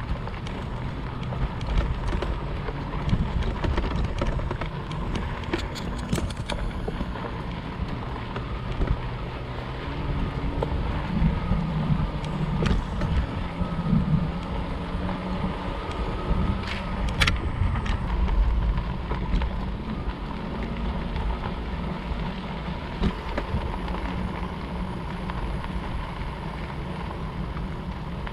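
Wind buffeting the microphone and fat tyres rumbling over a dirt trail while riding an electric fat-tire bike, with a faint steady whine underneath. A few sharp clicks or rattles come through, around a quarter of the way in and again past the middle.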